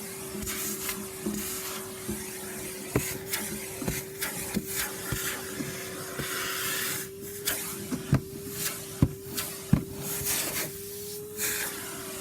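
Vacuum cleaner running with a steady motor whine, used inside a car, with frequent sharp knocks and short scraping, sucking bursts as it works over the interior.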